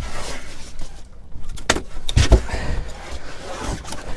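Knocks and rattling of fishing gear being handled on a small boat's deck, with a few sharp clacks about two seconds in.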